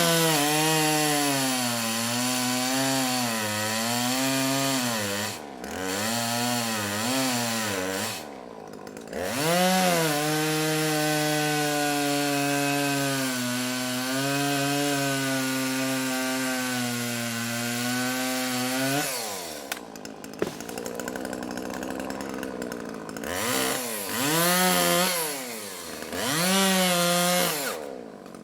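Two-stroke chainsaw cutting small trees: the engine revs up and its pitch sags as the chain bites into the wood, in several short cuts. A long cut of about nine seconds follows, then the saw drops to idle and is revved twice more near the end.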